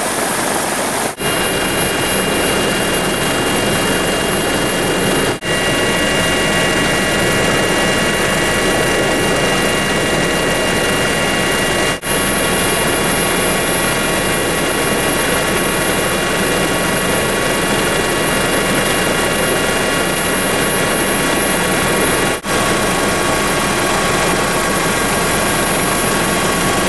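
MH-65 Dolphin helicopter running steadily, heard from aboard: dense turbine and rotor noise with steady high-pitched whines on top. The sound dips very briefly four times.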